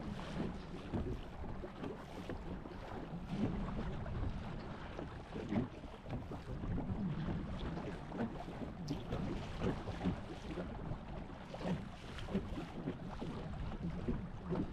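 Wind blowing on the microphone, with water lapping around a small canoe.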